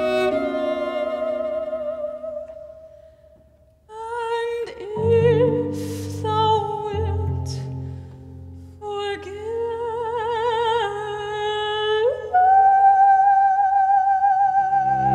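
Classical vocal music: singers holding long notes with vibrato. One note fades away in the first few seconds, then two voices come in together about four seconds in over low held instrumental notes, and the upper voice steps up and holds near the end.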